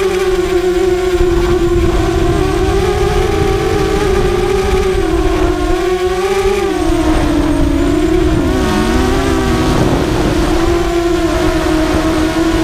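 ZMR250 quadcopter's brushless motors and propellers whining steadily, heard from the camera on board. The pitch dips and wobbles from about six to ten seconds in.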